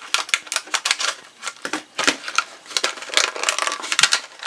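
Stiff plastic blister packaging crackling and clicking in quick, irregular snaps as a stainless-steel multi-tool is pulled out of it.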